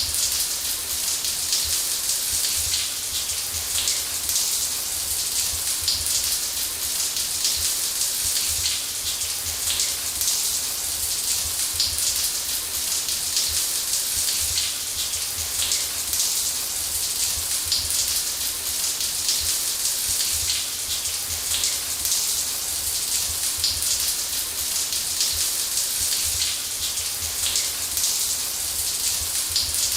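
Shower running steadily: water spray pattering on a hard surface, a dense hiss strongest in the highs with a low rumble underneath.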